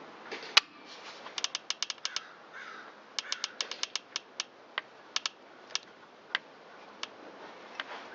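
Ratchet wrench clicking in short quick runs as it is worked on a seized bolt, after one sharp knock about half a second in. Crows caw faintly in the background.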